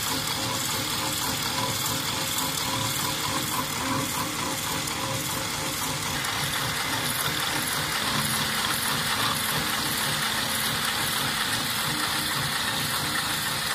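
Computerized industrial sewing machine for bra hook-and-eye tape, running steadily with a rapid, even mechanical clatter from its needle and feed. A low steady hum joins about eight seconds in.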